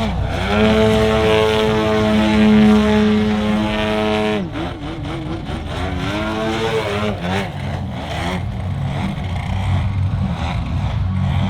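Engine and propeller of an Apex Aerotech 102-inch Slick 360 large-scale aerobatic RC plane, holding a steady high note for about four seconds. It then drops and rises and falls in quick wavering surges as the throttle is worked through 3D manoeuvres.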